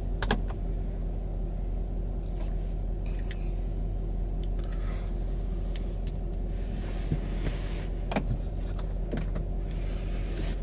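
Steady low hum of an idling car engine, with scattered short clicks and light rattles of things being handled.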